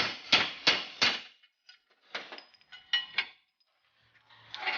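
Hammer blows on a metal tool wedged against a bearing outer race, knocking the race out of the rear trailing-arm housing, about three strikes a second that stop a little over a second in. A few ringing metallic clinks and rattles follow, as the race works loose, with one more knock near the end.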